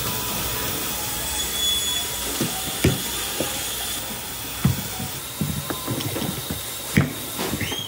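Steady hiss of coconut packing-line machinery, with a few sharp knocks scattered through; the loudest knock comes about seven seconds in.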